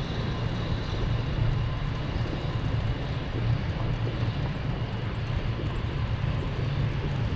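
Steady rumble of a bicycle rolling along an asphalt street, heard from the rider's camera: wind buffeting the microphone together with tyre and road noise, with no sharp sounds.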